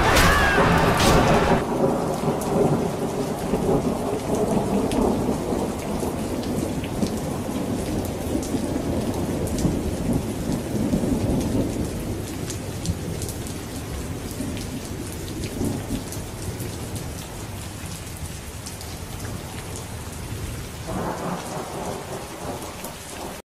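Thunderstorm: steady rain with a low rolling rumble of thunder, slowly fading, and a swell of thunder near the end. A louder din cuts off about a second and a half in.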